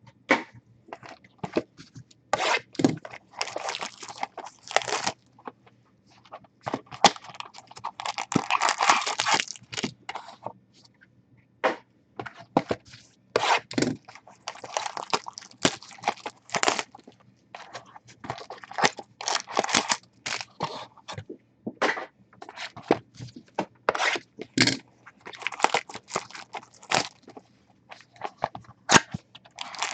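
Sealed trading-card boxes and packs being opened by hand: plastic wrapping crinkling and tearing, with cardboard scraping and clicking. The sounds come in irregular bursts.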